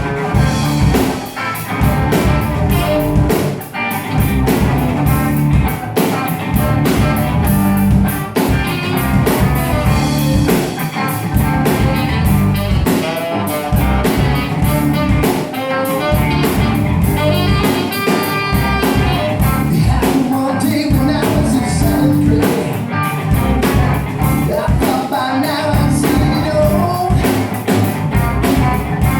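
Rock band music with guitar and a steady drum beat.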